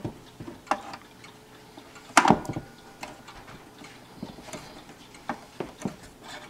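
Irregular wooden clicks and knocks as the middle section is fitted back onto a Seth Thomas Brookfield banjo wall clock's case, with one louder knock about two seconds in.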